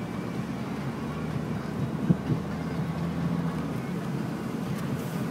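Car engine and road noise heard from inside the cabin of a moving car, a steady low drone. A single brief knock about two seconds in.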